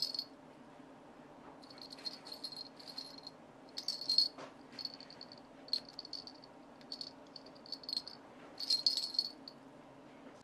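Twin bite-alarm bells on a spring clip, mounted on a fishing rod tip, jingling in about six short bursts on and off. This is the ringing that signals a fish taking the bait.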